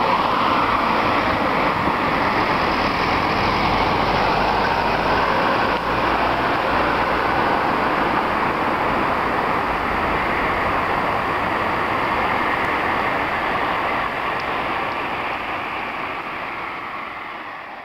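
Steady road traffic noise from cars passing on a busy road, fading out near the end.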